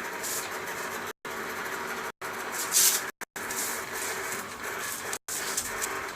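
Steady background hum and hiss from an open microphone, cut by several brief dropouts to dead silence, with a short louder hiss about three seconds in.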